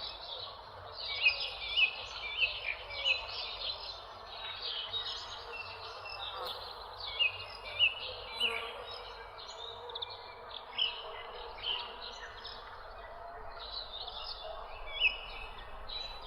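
Several birds chirping and singing in quick, overlapping short calls over a steady background haze, with a few louder chirps standing out here and there.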